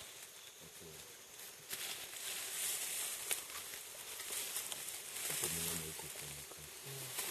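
Leaves rustling and twigs crackling as young mountain gorillas climb and swing in tangled vines, with a sharp snap about three seconds in. Low murmured voices come in briefly near the end.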